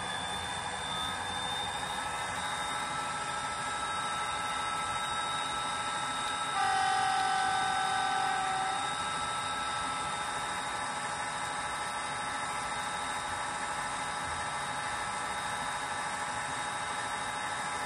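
DCC sound decoder in a Bachmann Class 57/3 model locomotive playing the recorded diesel engine idling steadily through the model's small onboard speaker. About seven seconds in, a single louder held note sounds over it for about two seconds.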